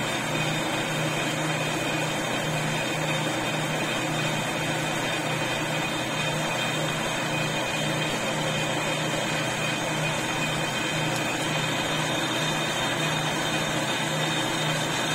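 Lathe running, driving its carriage along the reground bed: a steady mechanical hum with a low, evenly pulsing throb.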